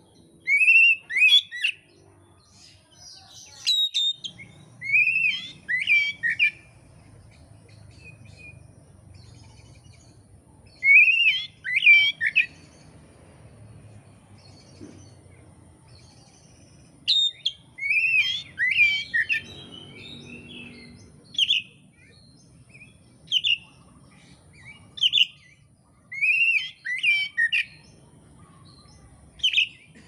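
Oriental magpie-robin singing: loud, clear phrases of rising and falling whistled notes, sung in short clusters with pauses of a few seconds between them.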